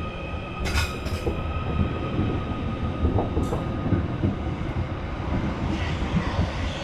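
Merseyrail electric train running through the station: a steady rumble with a few thin, steady whining tones above it.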